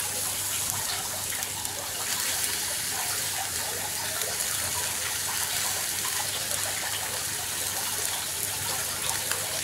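Turkey breast sizzling on a grill grate over hot charcoal: a steady hiss with no let-up.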